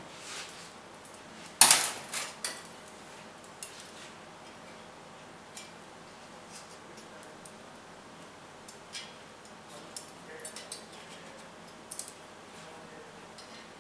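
Light metallic clinks and ticks of a piston ring being handled and set into a cylinder bore of a bare engine block for an end-gap check, with one sharp, loud clink about two seconds in and scattered small ticks after.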